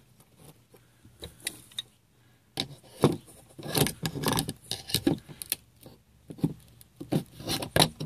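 Slip-joint pliers gripping and twisting a small 3-inch Cyclone spa jet in its stainless trim ring, trying to unscrew the stuck jet: irregular clicks, scrapes and metallic clinks. It is sparse and faint at first and becomes busier and louder from about two and a half seconds in.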